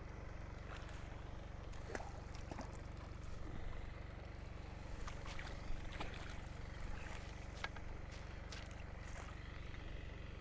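A hooked fish splashing and slapping at the surface as it is played in close to the bank, in a series of short irregular splashes. Beneath it runs the steady hum of the lake's aerator pump, pushing water back into the lake.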